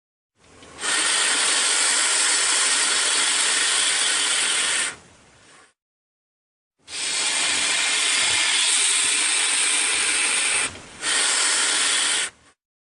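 Hissing sound effect in three long bursts: one of about four and a half seconds, then after a silent gap one of nearly four seconds, cut briefly and followed by a shorter burst near the end.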